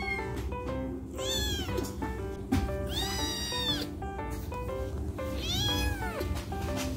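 Sick kitten meowing loudly three times, each cry arching up and falling away, the second the longest; the owner says he cries out like this when he poops while ill. Background music of short plucked notes runs underneath.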